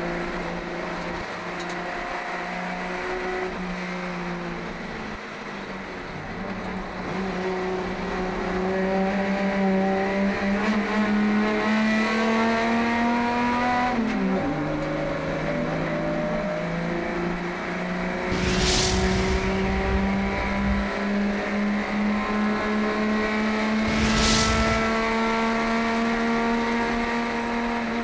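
Holden HQ Kingswood race car engine heard from inside the cabin under racing load. Its pitch climbs, drops sharply about halfway through as it changes gear, then climbs slowly again. Two short bursts of rushing noise come about five seconds apart in the second half.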